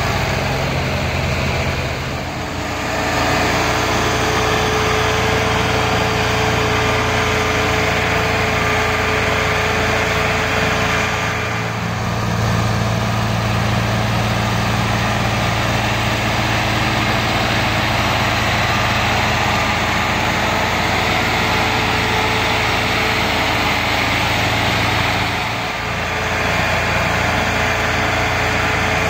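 Diesel tractor engines running hard while pulling heavily loaded sugarcane trolleys: a steady, loud engine drone that dips briefly three times.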